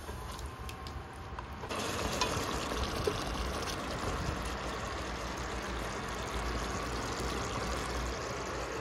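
Chicken curry gravy simmering in a steel pot, a steady watery bubbling hiss that starts suddenly about two seconds in; before it there is only a faint sizzle.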